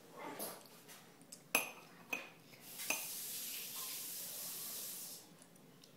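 Metal spoon clinking against a china bowl three times as food is scooped up, followed by a steady hiss lasting about two and a half seconds.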